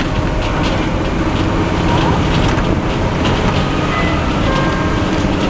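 Leyland Olympian 11M double-decker bus's Cummins LT10 diesel engine running steadily as the bus cruises, heard from inside the bus.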